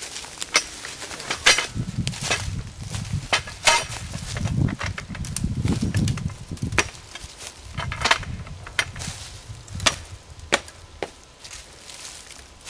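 Irregular sharp snaps and cracks of woody honeysuckle roots and stems being handled and broken, with rustling of dry leaf litter and dull low thumps between about two and seven seconds in.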